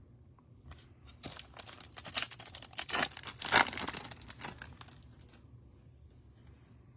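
Plastic trading-card pack wrapper being crinkled and torn open by hand, a run of crackling rustles that peaks about halfway through and stops after about five seconds.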